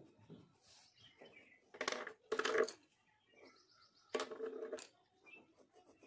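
Three short bird calls, each under a second, in an otherwise quiet room: two close together about two seconds in, and one more about four seconds in.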